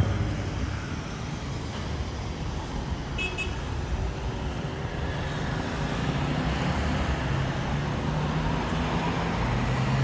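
Jet engines of an Airbus A330-200 airliner climbing away in the distance: a steady low rumble that swells slightly near the end.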